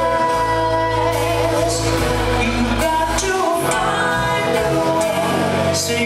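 Live band playing a song with women singing, a lead singer and a backing singer at microphones, over a steady bass line, drums and cymbals.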